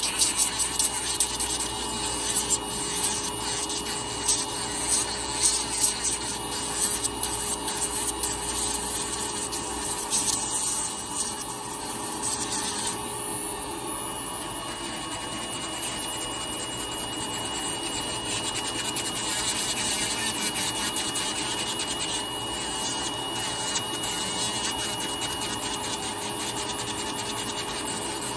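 Podiatry rotary nail drill with a conical burr grinding down a thickened fungal toenail: a steady motor whine under a gritty rasping, rougher and more uneven for the first dozen seconds, then smoother.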